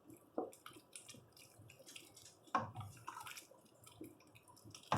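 Thick beef stew being stirred in a pot with a stirring paddle: faint wet squishing with scattered knocks and clicks, the sharpest about two and a half seconds in and again near the end.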